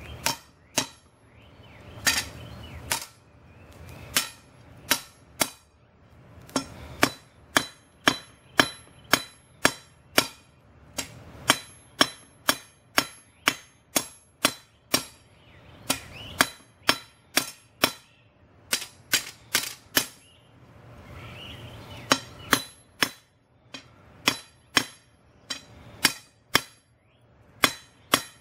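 Hand hammer striking a hot steel bar on an anvil, drawing the end to a taper for a punch. The blows come in runs of about two a second with short pauses, each a sharp hit with a brief metallic ring.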